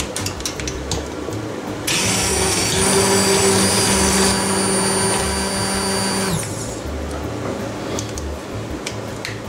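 Hand-held immersion blender running for about four and a half seconds, pureeing boiled potatoes, onion and garlic into a soup base: a steady motor hum and whine that starts about two seconds in and winds down in pitch as it is switched off. A few light clicks come before it starts and after it stops.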